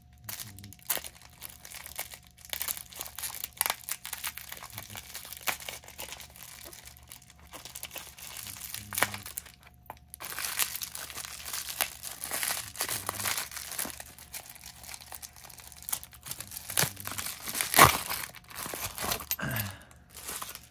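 Paper and cardboard packaging crinkling and tearing in irregular rustles as a boxed padlock is unwrapped, with scattered small clicks and one sharp knock near the end.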